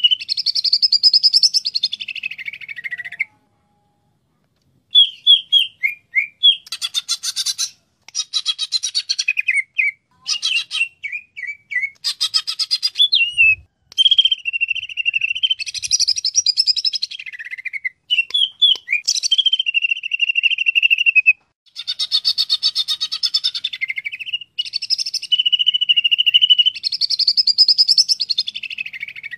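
Cucak ijo (green leafbird) singing loudly in a long run of varied phrases: clear held whistles, fast trills and quick chattering notes. It falls silent for about two seconds a few seconds in, with a few shorter breaks later.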